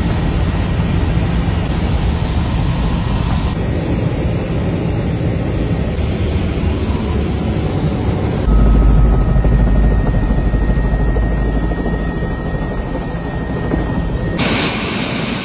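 Helicopter engine and rotor noise heard inside the cabin, a steady heavy drone. It changes abruptly a few times, and the low rumble is loudest from about halfway through.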